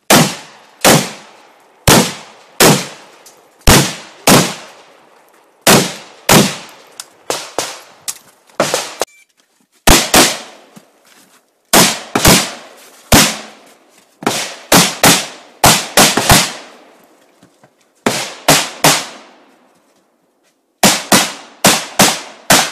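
Semi-automatic rifle fire from an AK-pattern rifle: several dozen shots in quick pairs and short strings, each a sharp crack with a brief echoing tail. The firing stops twice for a second or two, once about nine seconds in and again near the end.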